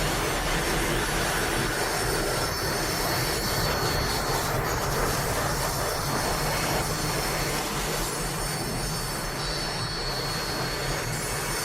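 Super Saiyan Blue Evolution power-up aura sound effect from the anime: a steady rushing noise over a low rumble, with a faint high whine.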